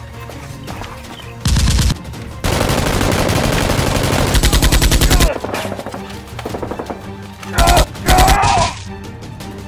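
Automatic gunfire sound effects over background music: a short burst about a second and a half in, a long rapid burst of about three seconds, then two short bursts near the end.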